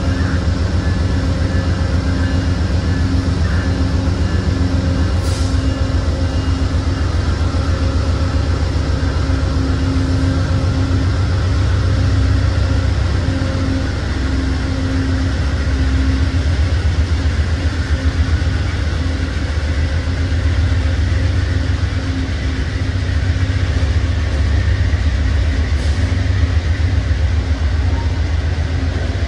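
Amtrak passenger train of Amfleet coaches pulling out and gathering speed past the platform: a loud, steady low rumble of the cars rolling by. A steady hum over it fades out about halfway through.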